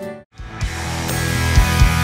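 Music: after a brief drop to silence, a rock track starts and builds up, with low drum hits.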